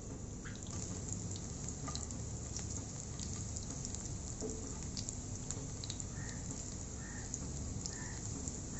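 Sliced garlic frying in mustard oil in a non-stick pan: a steady sizzle with scattered small pops and crackles as a spatula stirs it.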